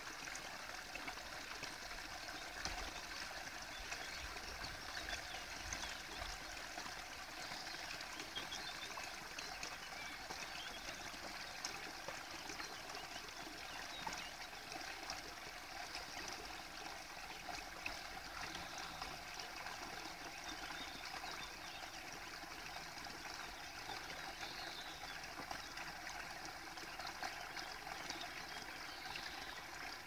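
Steady, even hiss of running water, like a small stream trickling.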